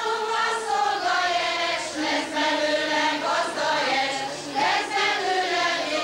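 A group of women singing a folk song together, with long held notes.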